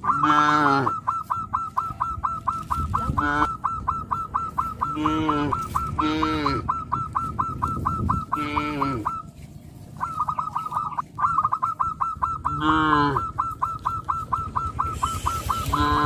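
Geese honking: a fast, steady run of short repeated calls, with louder, longer honks breaking in about seven times and a brief lull around the middle.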